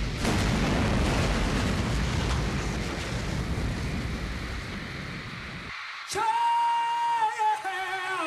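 Fireworks and stage pyrotechnics going off over a stadium: a rumbling roar that starts sharply and fades over about five seconds. About six seconds in, music starts with a long held note.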